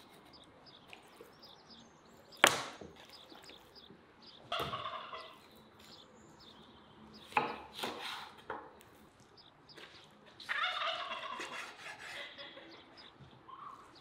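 A heavy kitchen knife chopping through a raw whole chicken on a wooden board, with one loud sharp chop about two and a half seconds in and a few more chops around the middle. Poultry calls twice in the background, briefly just before the middle and for a second or two near the end.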